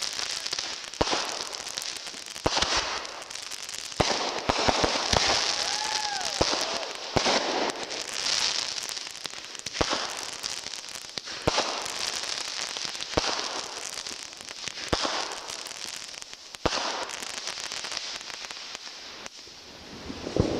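Consumer aerial firework shells and tubes going off in a steady string: a sharp bang every second or two, each followed by a spell of crackling.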